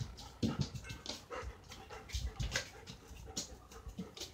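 German Shepherd panting, a quick run of breathy strokes in and out, with a few low soft thumps.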